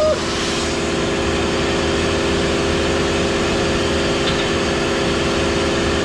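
Laser cutter running with a steady machine hum from its fans and pumps, several fixed tones over an even rushing noise, while the cutting head stands still.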